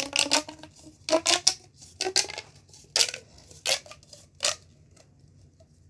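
Plastic pop tube fidget being stretched and squashed, its ribbed plastic popping in short crackling bursts, about one every second, stopping near the end.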